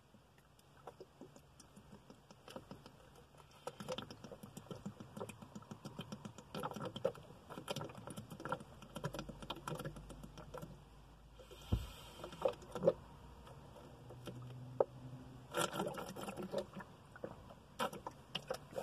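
A man gulping sweet tea straight from the bottle: a long, irregular run of quick swallowing gulps that grows louder after the first few seconds, with a brief rush of noise and a single thump a little past halfway.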